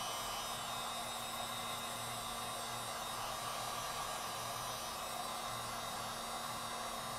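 Electric heat gun running steadily, its fan blowing hot air onto an iPod touch's display glass to warm the adhesive: an even rushing hiss with a faint low hum.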